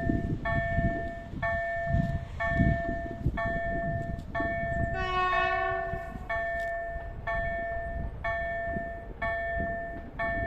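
Level-crossing KLD-4103 electronic bell sounding a repeating tone about once a second. About halfway through, a train sounds its horn once for about a second, over a low rumble.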